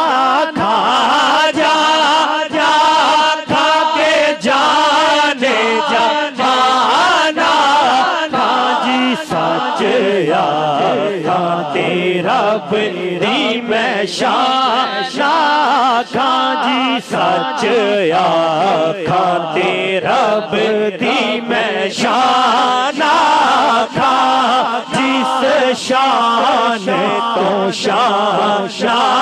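Men's voices chanting a devotional Islamic refrain in a continuous melodic chant, led by a singer on a microphone and amplified over a sound system.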